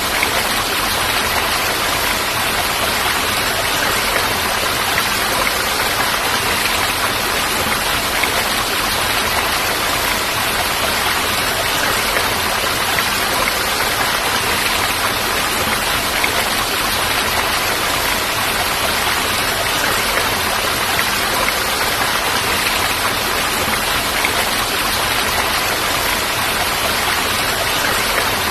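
Falling water making a steady, unbroken rush, an even hiss with no separate drops or other events standing out.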